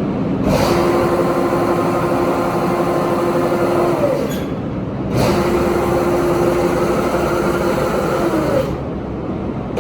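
Aronson GE500-400 welding positioner's electric drive motor and gearing running under power twice, each time for about three and a half seconds, with a steady whine that slides down as it stops. A constant mechanical hum runs underneath.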